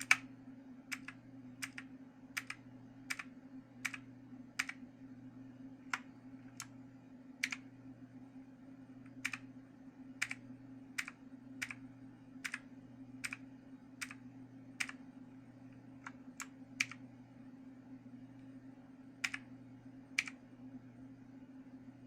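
Keys of a Motospeed CK888 mechanical keyboard pressed one at a time: separate clicks, a little more than one a second, unevenly spaced. A steady low hum runs underneath.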